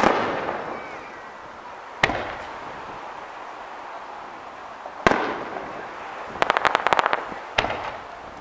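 Aerial firework shells bursting: four sharp booms about two to three seconds apart, each trailing off with an echo, and a quick string of about ten small pops just before the last boom.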